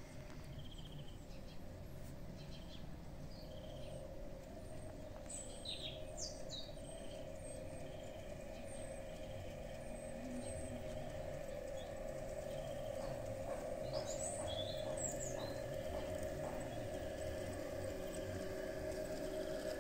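LGB G-scale model train running on a garden railway track, its motor and gearing giving a steady hum over a low rumble that grows louder as the train comes closer. Birds chirp a few times over it.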